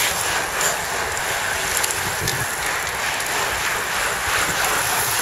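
A bunch of racing bicycles passing close by: a steady rush of tyres and spinning wheels with faint ticks.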